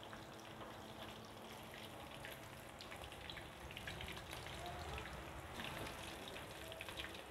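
Breaded chicken drumsticks deep-frying in hot oil in an aluminium karahi: a soft, steady sizzle dotted with many small crackling pops.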